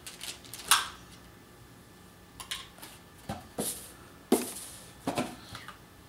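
Light clicks, clacks and rustles of small plastic parts and packaging being handled as a fireplace remote kit's receiver, batteries and bags are unpacked. About six separate knocks, the sharpest about three-quarters of a second in.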